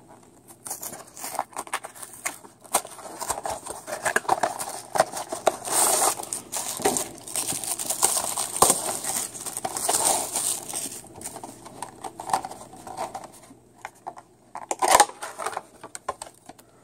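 Small model-car packaging being torn open and crinkled by hand: irregular rustling, tearing and clicks, busiest in the middle, with a sharp loud rustle or knock near the end.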